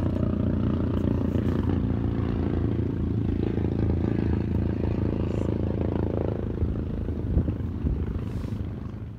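Two motorcycles' engines running hard as the bikes ride across the lake bed, fading away near the end.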